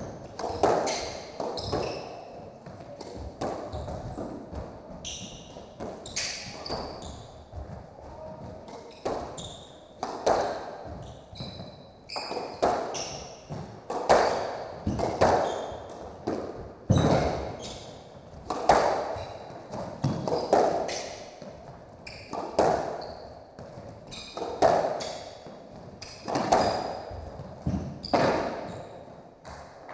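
Squash rally: the hard rubber ball cracks off rackets and the walls every second or two, with short high squeaks of court shoes on the hardwood floor between the hits.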